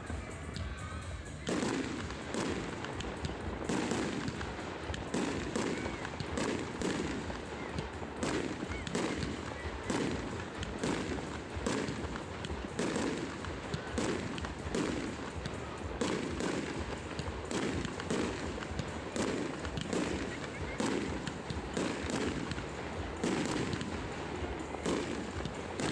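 Aerial fireworks display: a steady run of shell bursts and bangs, about one and a half a second, beginning about a second and a half in, with music playing along.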